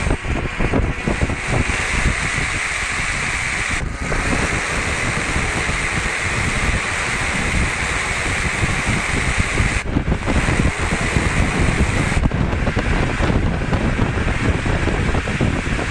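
Loud wind rush on the microphone of a camera riding on a Renault Mégane RS 250 Cup driven at speed on track, with the car's running noise buried in it. The rush dips briefly about four seconds in and again about ten seconds in.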